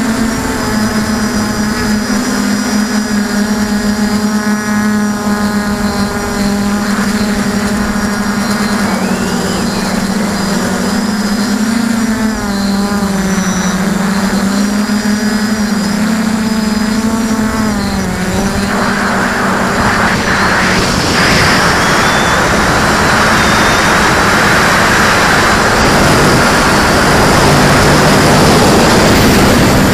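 Lumenier QAV400 quadcopter's brushless motors and propellers buzzing in flight, heard from a camera on its frame, the pitch wavering up and down as the throttle changes. About two-thirds in, a louder rushing noise rises over the buzz and holds to the end.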